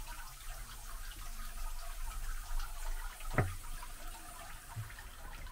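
Water trickling and splashing in a stone garden grotto's water feature, a steady light patter. One short knock about halfway through.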